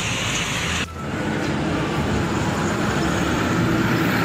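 Steady road traffic noise from passing vehicles, with a brief dip about a second in.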